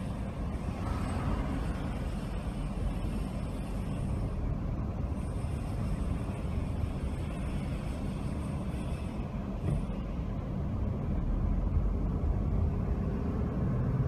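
Car running at low speed in city traffic, heard from inside the cabin: steady engine and road noise, a little louder over the last few seconds.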